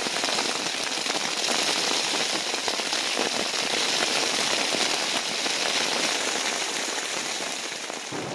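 Heavy rain pelting a tent's nylon rainfly in a downpour: a steady, dense patter of drops.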